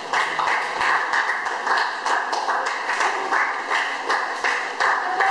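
A small group of people clapping their hands, with irregular claps several times a second.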